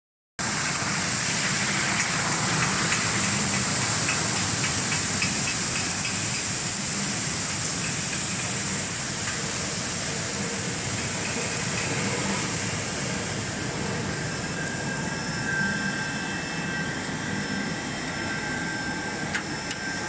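Seaweed washing machine running: water churning and bubbling in its stainless-steel tank over the steady noise of its motors and pump. A faint high steady whine joins about three-quarters of the way through.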